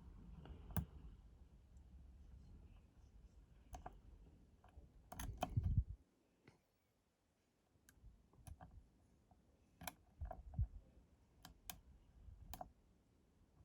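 Dimple pick and tension tool clicking against the pins inside a 5-pin AZBE dimple lock during picking: scattered sharp metallic clicks with a denser flurry about five seconds in, then a brief quiet gap before single clicks resume.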